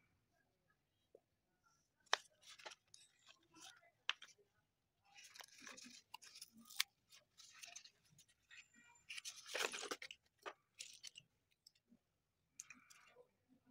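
Cardboard packets of slate pencils being handled and opened: scattered rustling of cardboard and paper with sharp clicks of the slate sticks knocking together, the sharpest about two, seven and ten seconds in.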